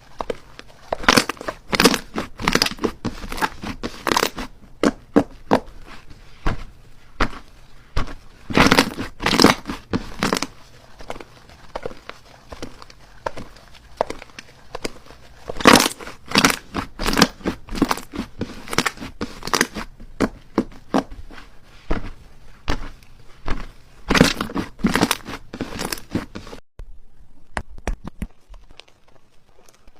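Slime being squeezed and worked by hand, giving repeated sharp crackling and popping in uneven clusters, thinning out near the end.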